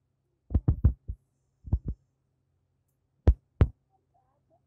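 Clear pink slime squished and poked by hand, making short wet pops and squelches in quick clusters: about four near the start, two a little later and two sharper ones past the middle.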